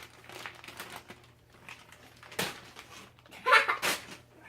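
A mailing package being handled and pulled open: faint rustling, with a sharp tap a little past halfway and a short, louder burst of sound near the end.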